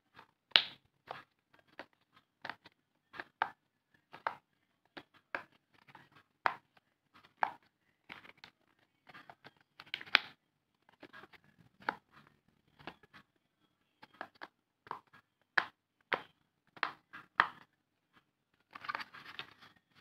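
Silicone pop-it fidget toy bubbles pressed one by one with a finger, giving an uneven series of sharp pops, about one or two a second. Near the end there is a short scratchy rustle of the toy being handled.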